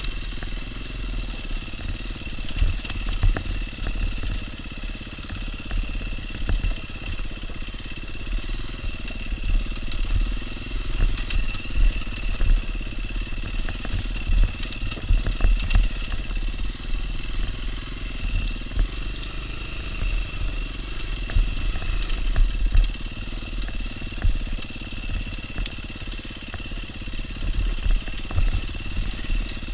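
Enduro dirt bike's engine running under the rider over a rough trail, its pitch rising and falling now and then, with a steady high whine. Wind rumble and frequent knocks from the bumps come through the on-bike microphone.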